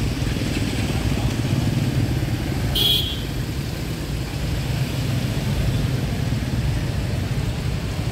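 Slow street traffic: motorbike and car engines idling and creeping past in a steady low rumble. There is a brief high-pitched sound just before three seconds in.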